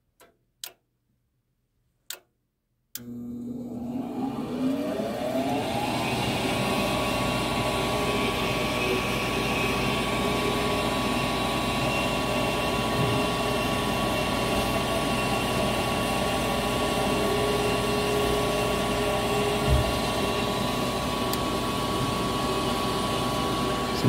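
A few sharp clicks, then about three seconds in the Goodman high-efficiency furnace's draft inducer motor starts, its whine rising in pitch as it comes up to speed and then running steadily. This is the start of a heat call, the inducer's pre-purge before the hot surface igniter is powered.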